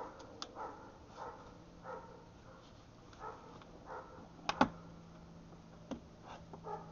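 A dog barking over and over, about one bark every two-thirds of a second. Over it come a few sharp plastic clicks as the splash-shield retainers and panel are worked by hand; the loudest is a quick double click about four and a half seconds in.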